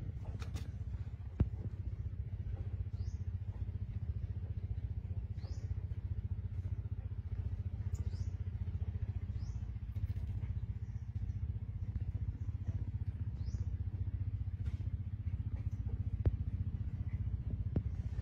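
A steady low engine hum, like a motor idling, with a few short rising bird chirps every couple of seconds over it.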